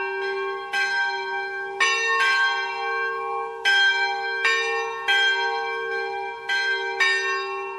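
Church bells ringing, struck roughly once a second at an uneven pace, each strike ringing on under the next so the tones overlap and hum together.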